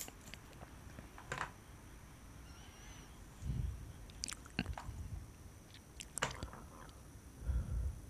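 Quiet tableware handling: a few light clicks and taps of wooden chopsticks against a plastic food container as it is lifted and a piece is picked out, with a couple of soft low thumps.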